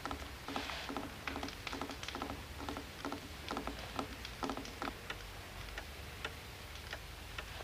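Mantel clock ticking steadily, a little over two ticks a second.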